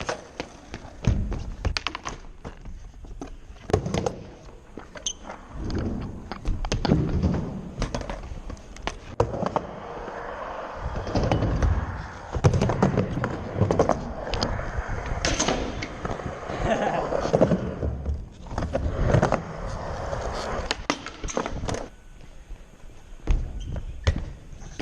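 Skateboards rolling over ramps with many sharp clacks and thuds from board impacts and landings, scattered irregularly throughout.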